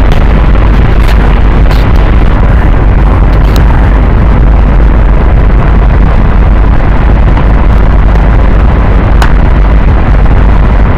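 Loud, unbroken distorted noise, heaviest in a deep low rumble, with a few sharp clicks scattered through it.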